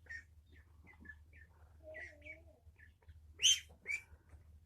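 Small caged pet birds chirping in short scattered calls, with two louder, sharper calls about three and a half seconds in.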